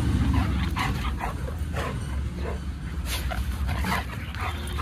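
Dogs at play giving short, separate yips and barks, one every half second to a second, over a steady low rumble.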